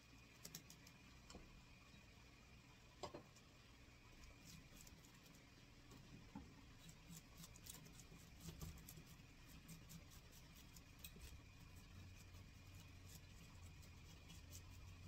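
Metal fish scaler scraping the scales off a red sea bream on a plastic cutting board: a faint run of quick scratchy clicks, with a couple of sharper knocks in the first few seconds and the clicks growing denser in the second half.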